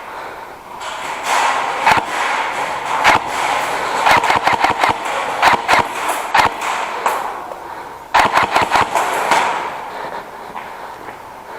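Airsoft guns firing: scattered single shots, then rapid bursts of snapping shots about four seconds in and again about eight seconds in.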